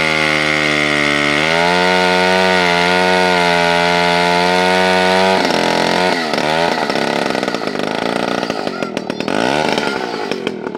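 Vintage two-stroke chainsaw cutting through a log at high revs, its pitch wavering slightly as it works under load. About five seconds in, the engine pitch drops and it runs unevenly at lower speed.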